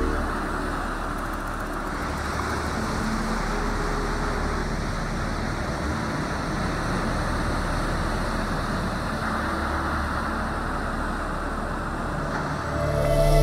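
Steady rushing noise of ocean surf, waves breaking and washing onto a beach.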